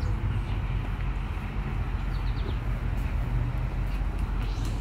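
Steady low rumble of outdoor background noise, with a few faint high chirps about two seconds in.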